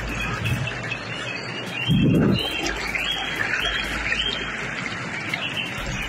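Floodwater rushing steadily through flooded woodland, with birds chirping over it. There is a brief low rumble about two seconds in.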